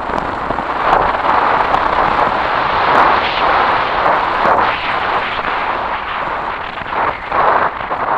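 Kawasaki KLR 650 single-cylinder engine running as the motorcycle rides a rough gravel track, buried under heavy wind noise on the microphone that swells and fades, with occasional clicks from the ride.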